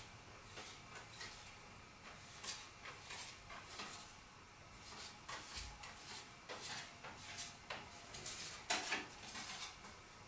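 Playing cards handled and set down while stacking a house of cards: light, irregular clicks and rustles of card on card, with a few louder ones near the end.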